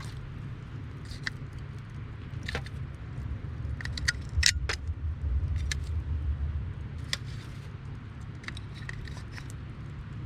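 Hardwood campfire crackling: irregular sharp pops and snaps over a steady low rumble. The pops come thickest about four to five seconds in, with the loudest snap there, as the low rumble swells for a few seconds.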